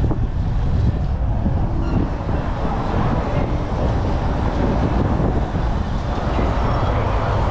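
Wind buffeting the microphone of a bike-mounted action camera while riding, a steady low rumble mixed with road noise.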